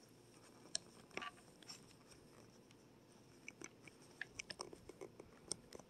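Near silence broken by faint, scattered small clicks and crackles, with a few about a second in and a quicker cluster of them through the second half.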